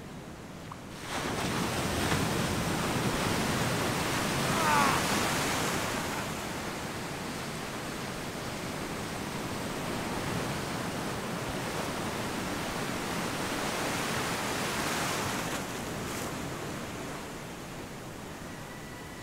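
Ocean surf breaking and washing around a wader's legs, an even rushing noise that surges louder about a second in.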